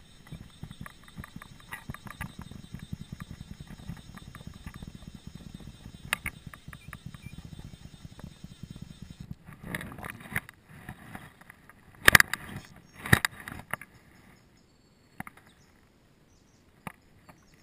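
Fine rapid clicking of fly tackle, reel and line, over a low rumble while a hooked trout is played on a bent fly rod. About halfway through the clicking stops, and two loud sharp knocks or splashes come about twelve and thirteen seconds in.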